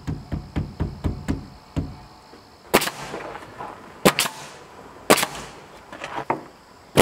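DeWalt pneumatic coil nailer driving nails into a rough-sawn barn-board window trim board. It fires four sharp shots about a second apart, beginning near three seconds in, each with a brief ringing tail. Before the shots comes a quick run of light knocks.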